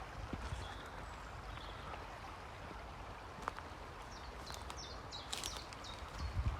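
Stream water flowing steadily, with a small bird giving a quick run of short, high chirps about four to five and a half seconds in.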